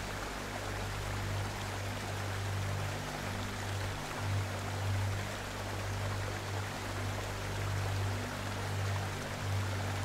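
Steady rushing of falling water, with background music of low, held notes that change every few seconds.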